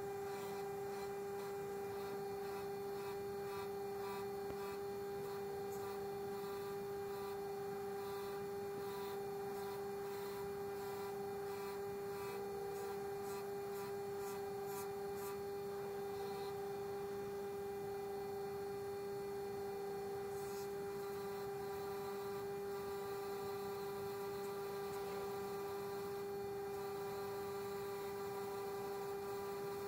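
Mac Afric electric grinder running at speed with a steady motor hum, and faint scrubbing now and then as a small metal part is held against the spinning wheel to clean off rust.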